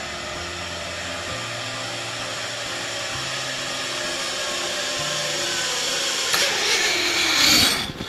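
Zip line trolley pulleys whirring along the steel cable, a steady whine that grows louder, then drops in pitch near the end as the riders slow at the landing platform.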